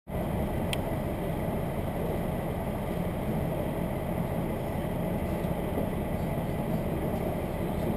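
Diesel railcar's engine and running gear heard from inside the car: a steady low rumble.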